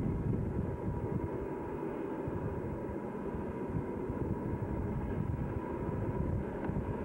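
Wind buffeting the microphone over the low rumble of distant Southern Pacific diesel locomotives working a heavy freight upgrade.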